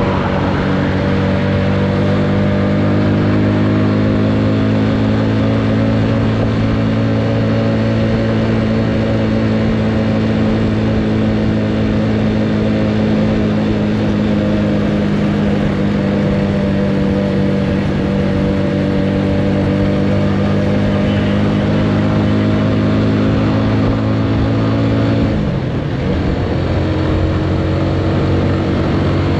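Motorcycle engine running at a steady cruising speed, with wind and road noise rushing past. Near the end the engine note breaks off briefly and picks up again.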